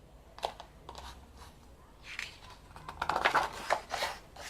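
Paper handling: the glossy pages of an album photo book being turned and rustled. There are a few light rustles early on and a louder, denser flurry of rustling about three seconds in.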